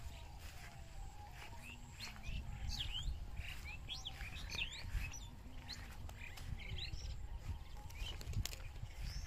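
Small birds chirping: many short, quick calls, thickest in the middle, over a steady low rumble.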